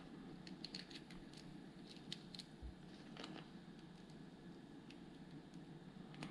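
Faint, scattered clicks and taps of plastic Lego Technic pieces being handled and fitted, a few at a time, over a low steady room hum.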